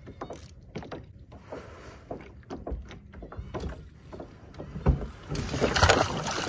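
Small knocks and clatter of gear against a plastic sit-on-top kayak hull. Just before five seconds in comes a heavy thump, then a loud rush of splashing water as the kayak rocks hard and nearly capsizes.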